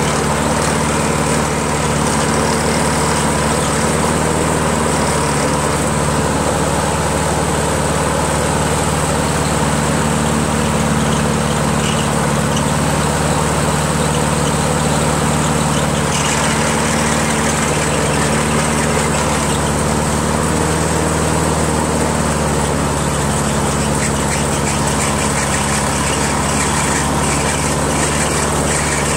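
Honda GCV160 single-cylinder mower engine on a Harmony II HRZ216 running at a steady, even speed with no surging, now that its carburetor has been cleaned.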